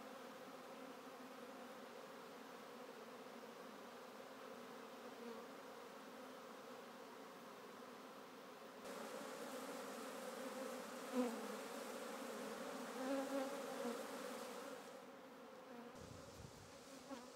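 Honeybees buzzing around an opened hive as they are brushed off a frame of queen cells: a steady hum that grows louder about nine seconds in, with a few brief swells.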